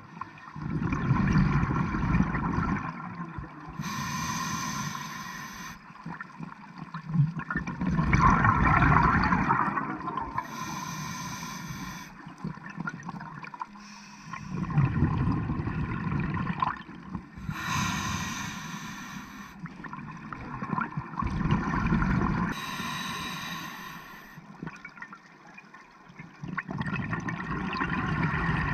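Scuba regulator breathing underwater: a short hiss on each inhale, then a low bubbling rumble as the exhaled air leaves the regulator, repeating about four times.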